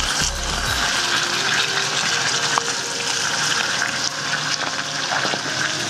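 Range Rover's tyres churning through wet mud and water with a steady splashing hiss, and a faint engine note underneath.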